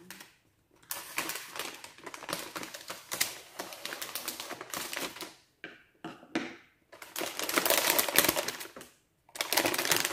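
Rapid, dense crackling clicks from something being handled, in several long stretches with short gaps, loudest about two-thirds of the way through.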